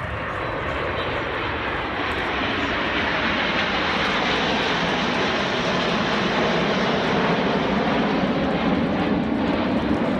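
Jet noise of the Avro Vulcan XH558 flying past in formation with the Red Arrows' jets, growing louder over the first few seconds and then holding steady.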